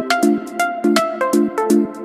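Background electronic music: short plucked synth chords over a steady beat.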